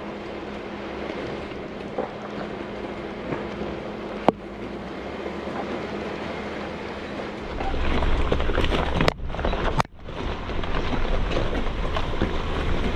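Jeep Wrangler JK driving slowly over a rocky dirt road: steady vehicle and road rumble with occasional sharp knocks and rattles, and wind on the microphone. It gets louder and heavier about eight seconds in, then cuts out briefly twice.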